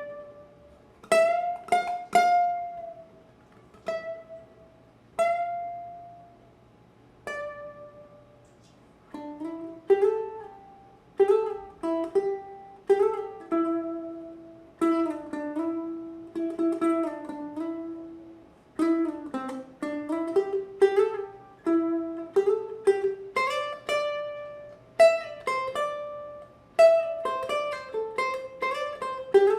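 Ohana TK-250GCE tenor ukulele strung with D'Addario EJ88T Nyltech strings, played solo. Sparse plucked chords and single notes ring out and fade at first, then a continuous picked melody starts about nine seconds in.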